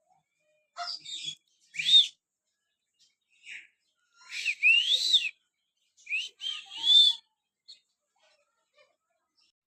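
Zoo bird giving a series of loud, shrill whistled calls in several bouts, their pitch rising and arching, with short pauses between.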